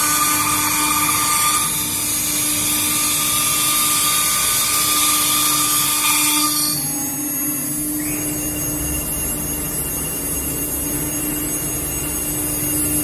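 CNC router spindle running with a steady whine. A loud high hiss stops about halfway through, and a higher thin whine comes in shortly after.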